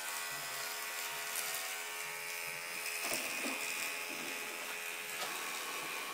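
Electric hair clippers running steadily as they shave hair off a scalp, the motor's sound shifting slightly about three seconds in.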